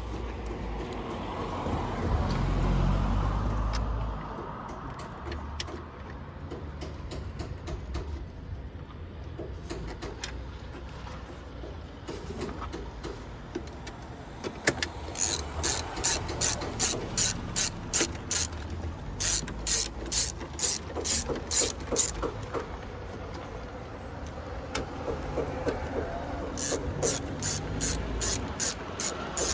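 Hand socket ratchet on an extension clicking in quick, even strokes, about three clicks a second, as bolts on the air intake are run in. There are two runs of clicking: one about halfway through and another near the end.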